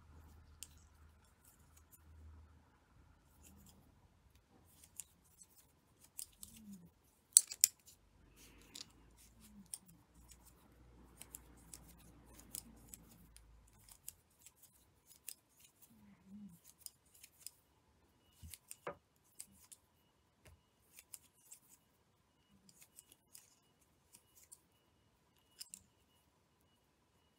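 Small scattered clicks and soft rustles of tatting shuttles and cotton thread being handled and pulled, the loudest two sharp clicks close together about seven seconds in.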